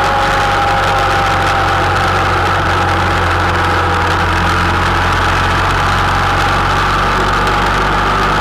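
Honda Interceptor 700's V4 engine running at a steady cruise, with wind noise over the bike-mounted microphone.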